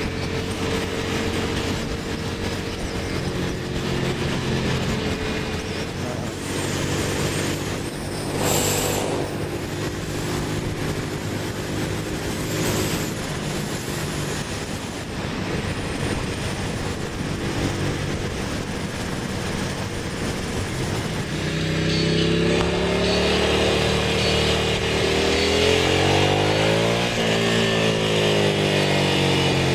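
Ducati V-twin motorcycle engine and wind rush at freeway speed, heard from the rider's seat. About two-thirds of the way through the engine note comes forward and louder, its pitch sliding down and then rising again near the end as the bike slows and changes gear.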